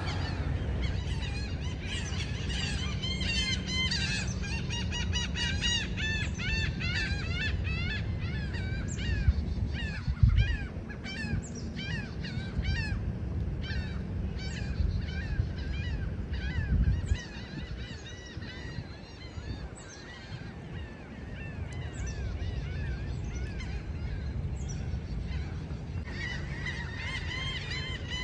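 A large flock of birds calling all at once, a dense chorus of rapid, overlapping shrill calls over a steady low rumble. The birds are calling in alarm at the darkening of a solar eclipse. The calls thin out past the middle and crowd in again near the end.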